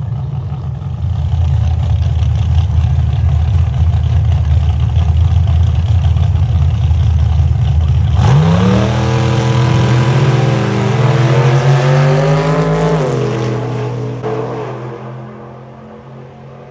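Drag-race engine running loud and rough, then about eight seconds in revving up in a steeply rising pitch and holding high for several seconds as the car pulls away. Near the end the note drops and fades away.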